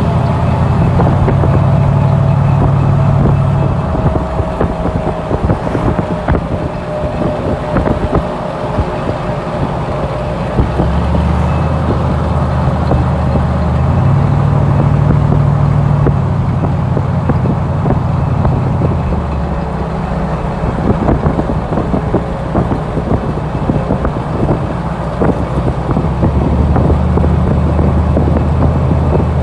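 Squatted pickup truck with a loud aftermarket exhaust, its engine running with a deep low drone. The engine speed changes in steps every few seconds, and the exhaust crackles throughout.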